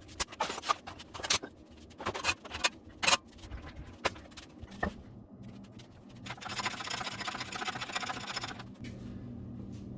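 Metal tools and bolts clinking and knocking as they are handled, then a fast, even rattle for about two seconds past the middle.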